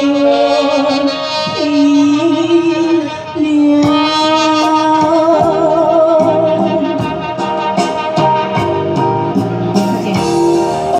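A woman singing a Chinese ballad into a handheld microphone, amplified through PA speakers over electronic keyboard accompaniment, holding long notes with vibrato.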